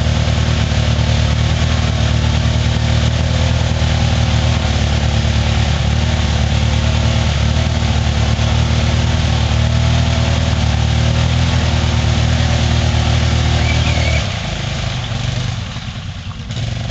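ATV engine running under steady throttle while the quad struggles through deep mud. About fourteen seconds in the sound drops off sharply as the throttle eases and the quad pulls away.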